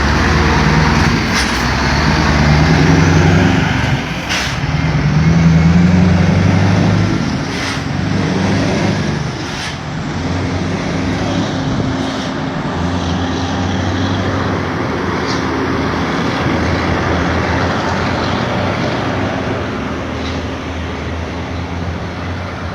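Scania V8 diesel truck engine roaring loudly. It swells and rises in pitch twice in the first seven seconds, then settles to a steady, heavy drone.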